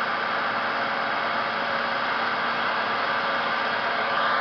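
Steady hiss and hum of running machinery, with several steady tones under the hiss. A faint rising whine comes in near the end.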